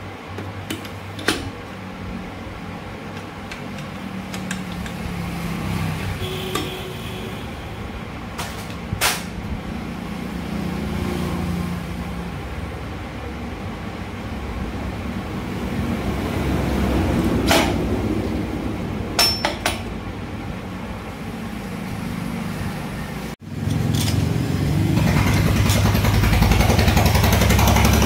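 Metal parts of a motorcycle engine's crankcase being handled and fitted, giving a few sharp clinks and taps, over a steady low rumble that grows louder for the last few seconds.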